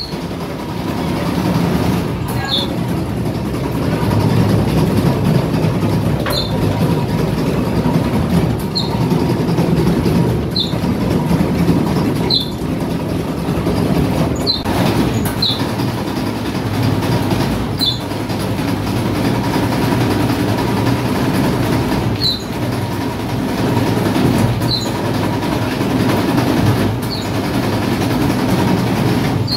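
A belt-driven bakery dough-rolling machine running with a steady mechanical rumble. A short, high squeak recurs every couple of seconds as it turns.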